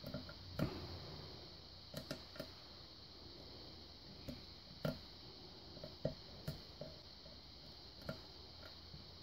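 Lock pick working the pin tumblers of a five-pin Chris Ahrens pin-tumbler lock under tension: a dozen or so faint, irregular clicks and ticks as the pick lifts and sets pins.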